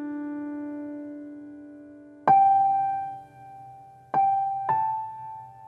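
Slow, sparse piano music: a held chord fades away, then three single notes are struck a little over two seconds in and twice more near the end, each ringing and dying away.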